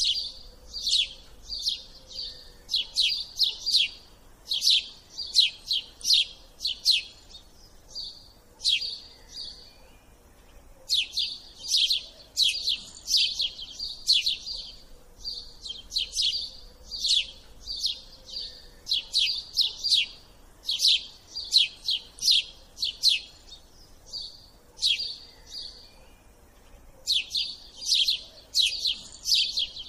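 Small bird chirping continuously in quick runs of sharp high notes, with a couple of short lulls.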